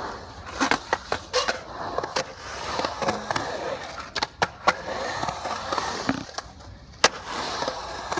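Skateboard wheels rolling over a concrete bowl, the rolling noise swelling and fading as the rider carves, with about ten sharp clacks of the board and trucks striking the concrete spread through it.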